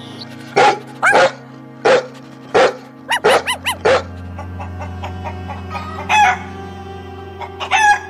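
A dog barking, single barks and then a quick run of five, followed by chicken calls near the end, over steady background music.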